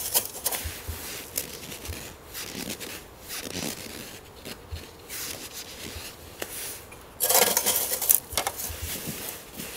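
A folding metal camp stand being handled, lifted and set back down on snow: light metal clinks and scrapes, with a louder rubbing scrape for about a second near the end.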